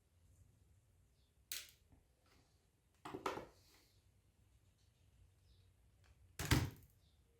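Three brief knocks and clatters of small hard parts and tools being handled while a laptop's hard drive is unscrewed and taken out; the last, about 6.5 seconds in, is the loudest.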